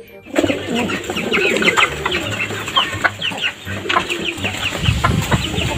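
A flock of domestic pigeons cooing and calling over one another, with many short high chirps throughout.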